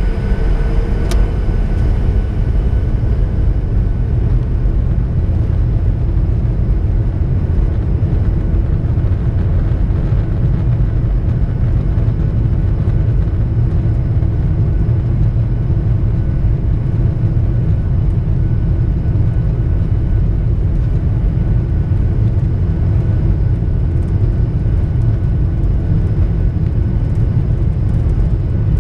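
Boeing 737-800 airliner taxiing, heard inside the cabin over the wing as a steady low rumble from its CFM56 turbofan engines at low thrust, with a faint steady whine. There is a single sharp click about a second in.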